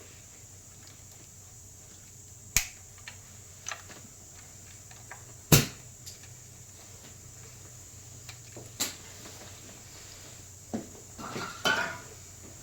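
Scattered sharp clicks and knocks of hand tools against metal parts during spark plug and coil pack work in an engine bay. The loudest knock comes about five and a half seconds in, and a short cluster of clicks falls near the end.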